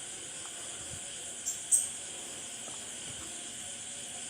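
Two sharp clicks about a quarter second apart, about a second and a half in, as a car's distributor cap is pushed and worked loose. A steady high hiss runs underneath.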